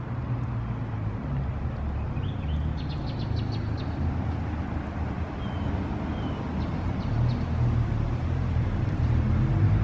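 A steady low rumble, with a few short, high bird chirps scattered through the middle.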